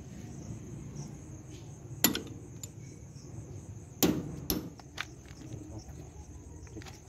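Sharp metal knocks as a steel pipe is tapped against a tractor's front wheel hub to seat the greased wheel bearing: one about two seconds in, then two close together about two seconds later, and a lighter tap after them. Crickets chirr steadily throughout.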